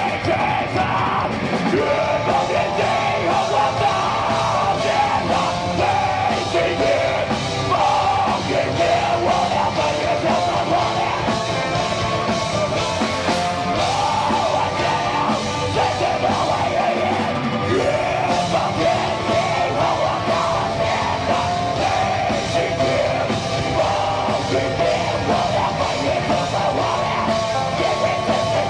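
Heavy metal band playing live and loud, distorted guitars and drums in full flow, with a melodic line wavering above them and yelled vocals at times.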